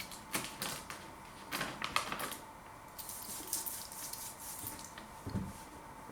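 Chewing of a pickled baby beetroot close to the microphone: wet clicks and smacks in two short bursts, then a softer, hissy stretch and a brief low mouth sound near the end.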